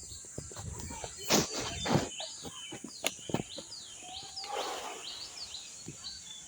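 Birds chirping over and over in short, quick falling chirps. Several sharp knocks or clicks cut through, the loudest about a second and a half in and again at two seconds.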